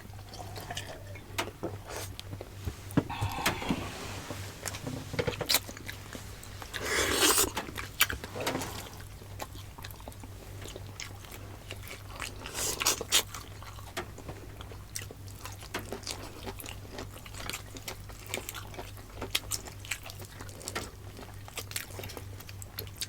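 Close-miked eating sounds: chewing and biting of food, with many small clicks and a few louder noisy bursts, over a faint low steady hum.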